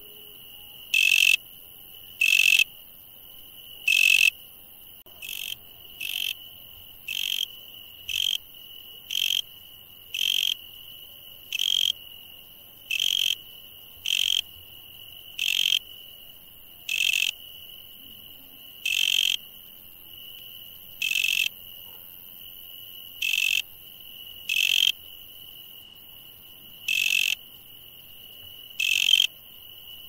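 Night insects calling: a steady high-pitched trill, with a louder, short chirp over it. The chirp repeats about once a second at first and slows to about once every two seconds.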